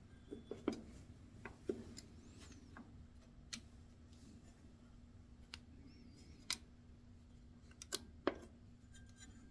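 Scattered small clicks and snaps of rubber spark plug wire boots being pressed onto the distributor cap terminals of a Ford three-cylinder tractor, over a faint steady hum.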